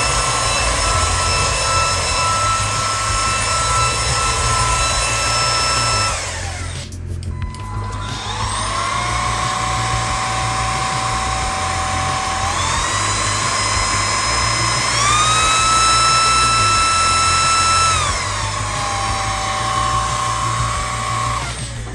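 Cordless stick vacuum's motor whining at a steady pitch, winding down about six seconds in, then spinning up again and stepping higher twice as it is switched through its power modes, before dropping back and winding down near the end.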